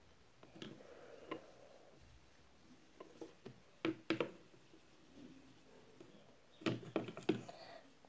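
Makeup items being handled: scattered soft taps and clicks, a sharper pair about four seconds in and a quick cluster of knocks near the end.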